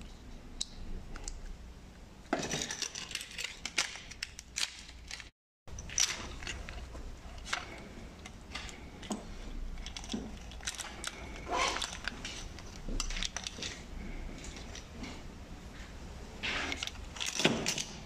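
Metal and plastic parts of a VW Polo exterior door handle and its lock cylinder being handled, giving irregular small clicks and scrapes.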